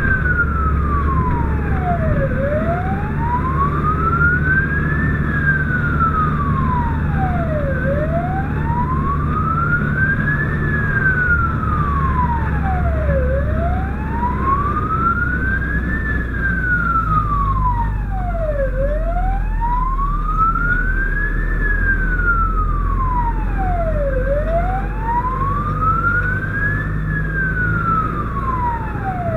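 Fire engine's wail siren, its pitch sweeping slowly up and down about every five and a half seconds, heard from inside the moving cab over a steady low engine and road rumble.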